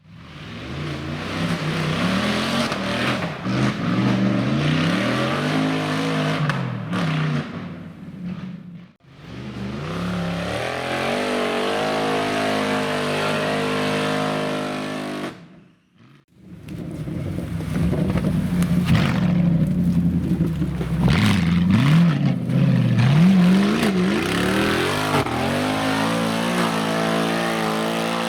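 Off-road 4x4 engines revving hard, pitch rising and falling again and again as the vehicles work through the course. The sound breaks off briefly about 9 and 16 seconds in and picks up again.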